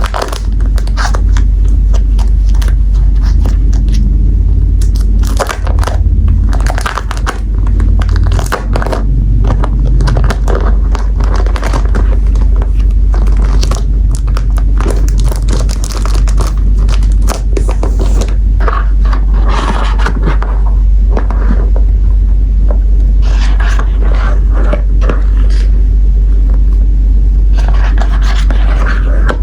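Close-miked handling of sticker sheets and packaging: irregular crinkles, scrapes and clicks of paper and plastic, over a steady low rumble.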